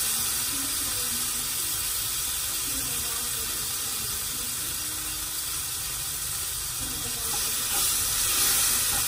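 Chopped tomatoes sizzling in a hot frying pan over spices and a little water, a steady hiss. It gets a little louder near the end as they are stirred with a wooden spoon.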